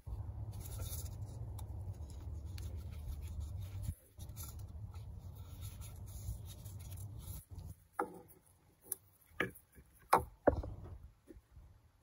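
Plastic fuel filter housing cap handled in gloved hands: light rubbing over a low rumble, then several sharp clicks and taps in the second half.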